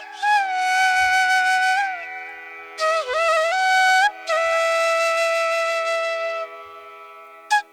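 Background music: a flute playing long, held, bending notes over a steady drone.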